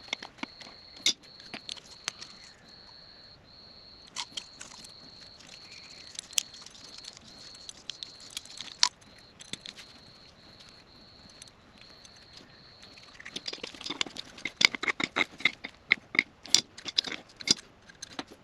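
Scattered clicks and light clatter of plastic plumbing fittings being handled while thread tape is wrapped on and the fittings are screwed onto a new water pressure regulator. The clicks turn into a quick, dense run about three-quarters of the way through.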